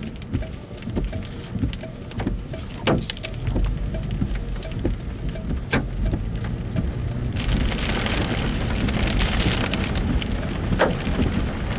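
Rain on a car's windshield and body: scattered drops tick sharply over a low rumble. About seven seconds in, it changes abruptly to a dense, steady hiss of heavy rain.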